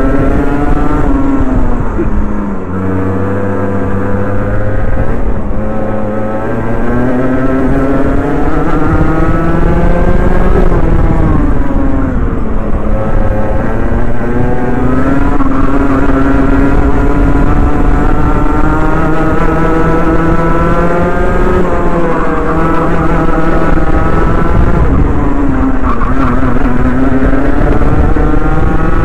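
Rotax Mini Max 125 cc single-cylinder two-stroke kart engine at racing speed, heard close from the driver's helmet. Its pitch climbs along the straights and drops sharply into each corner, about five times.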